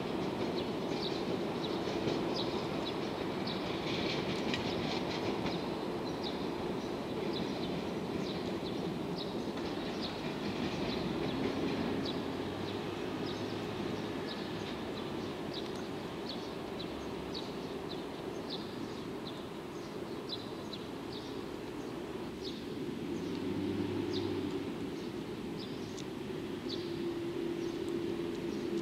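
DE10 diesel-hydraulic locomotive running light, its V12 diesel engine running steadily as the locomotive moves slowly away across the yard tracks.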